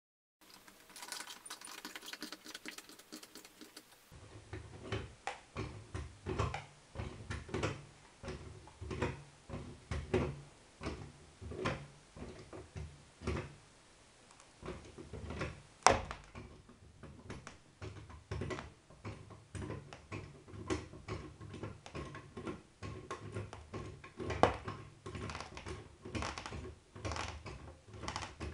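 Rapid, irregular clicking and knocking over a low rumble as a worn sneaker is ground and torn against a small wheel of a shoe-destroying rig. A sharp, loud knock comes about 16 seconds in and another about 24 seconds in.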